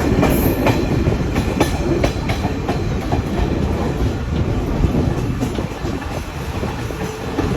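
Train running along the track: a steady rumble with irregular clacks of the wheels over the rail joints.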